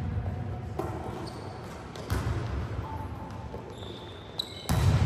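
Volleyballs being struck and bouncing on a hard court floor in a sports hall: several sharp smacks, each followed by a booming echo, the loudest about two seconds in and near the end.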